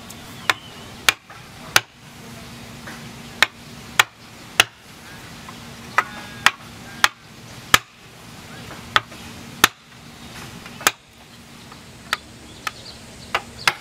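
Mallet striking a woodcarving chisel, cutting into wood: sharp separate knocks, about sixteen in all, often two or three in quick succession about half a second apart, with short pauses between the groups.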